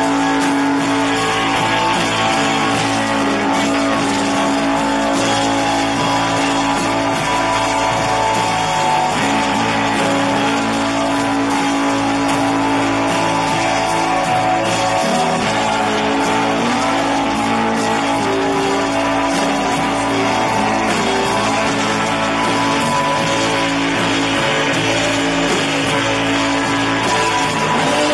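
Live rock band playing: electric guitars holding sustained chords over bass guitar and drums, loud and unbroken.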